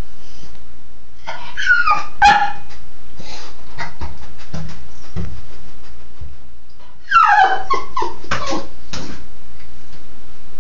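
Cairn terrier yipping and whimpering in short bursts, once about a second and a half in and again about seven seconds in, with scattered clicks and knocks between.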